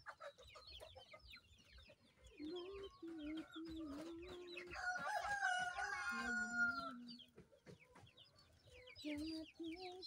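Backyard chickens calling: hens clucking with low drawn-out calls, a rooster crowing once in one long call about halfway through, and chicks peeping with short high chirps.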